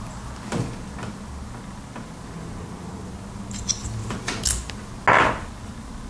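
Small plastic parts of an RJ45 Ethernet coupler being handled and worked apart: scattered light clicks and taps, a quick run of clicks past the middle, then a louder short scrape of plastic about five seconds in.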